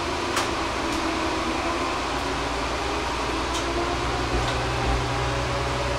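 Steady running noise inside an Amagi Railway diesel railcar on the move: an even drone of engine and wheels, with a few faint clicks from the track.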